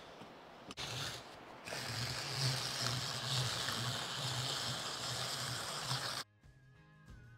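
Hand-cranked rotary shredder with a fine drum grating carrots: a short burst, then a steady rhythmic grind that pulses with each turn of the crank. It cuts off suddenly near the end as guitar music comes in.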